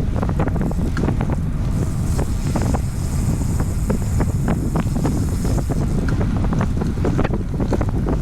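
Wind buffeting the microphone of a camera riding on a moving road bicycle, a loud, steady low rumble, with many short sharp clicks and ticks scattered through it.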